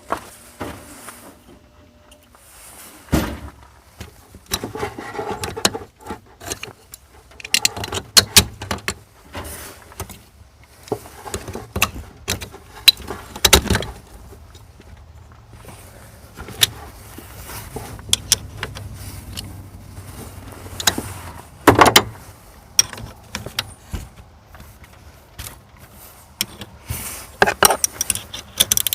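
Irregular clinks, clicks and knocks of hand tools and metal parts being handled during battery terminal work, some sharp and loud, with short gaps between.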